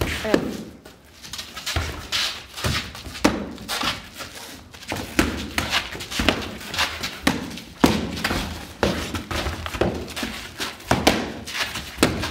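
Training swords striking shields and bodies in sword-and-shield sparring: a quick, irregular run of dull thunks and thuds, a dozen or more, with some room echo after each.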